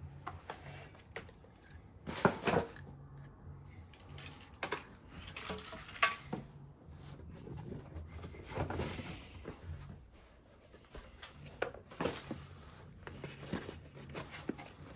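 Irregular knocks, clicks and rustles of plastic vacuum parts and packaging being handled, the sharpest knocks about two, six and twelve seconds in.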